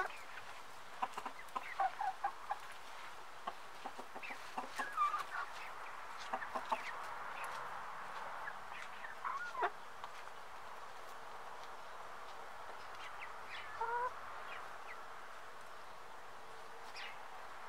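A small flock of hens clucking in short calls, thickest in the first several seconds, with a longer pitched call a little past the middle and quieter stretches between, over a steady faint background hiss.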